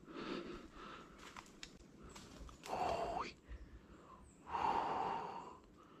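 A person breathing hard: two loud, breathy gasps or exhalations, each under a second, about three and five seconds in, with a few faint clicks before them.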